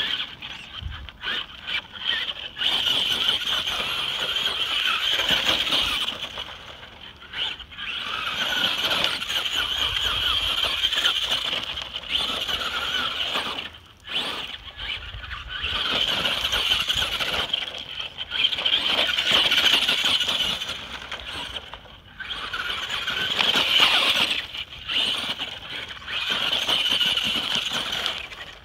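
Traxxas Rustler RC truck's electric motor and gears whining in repeated throttle bursts of a few seconds each, dropping off briefly between them as the truck drives over dirt and gravel.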